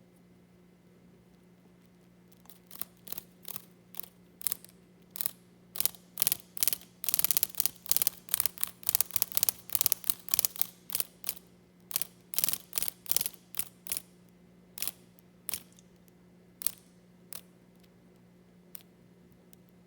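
Cicada giving harsh distress buzzes: short rasping bursts, a few at first, then coming fast and loud in a packed run, then thinning to a few single buzzes near the end. A faint steady low hum lies under it.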